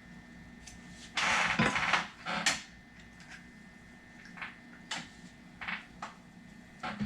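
Small shifter parts and tools being handled on a workbench: a short scraping rustle about a second in, then scattered light clicks and taps.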